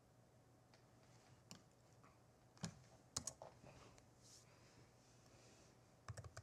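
Faint clicks from a computer mouse and keyboard: a few single clicks spread apart, then several in quick succession near the end.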